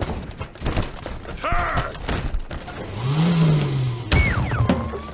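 Fantasy strategy video-game battle sound effects: a rapid clatter of clicks and knocks, a short shouted "Attack!" command about two seconds in, a low tone that rises and falls around three seconds in, and a sharp impact just after four seconds followed by a falling whistle-like tone.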